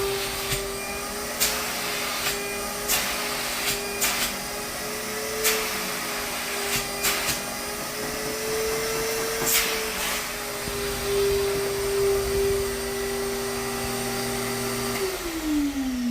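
Allegro Champion MUA50 central vacuum power unit running with a steady whine, its freshly repaired motor running smoothly, with scattered sharp clicks over the first ten seconds. Near the end it is switched off and the pitch falls steadily as the motor winds down.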